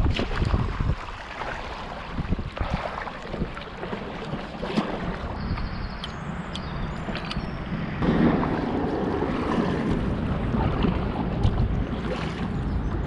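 Paddle strokes splashing in the river beside an inflatable canoe, over a steady rumble of wind on the microphone that grows louder about eight seconds in.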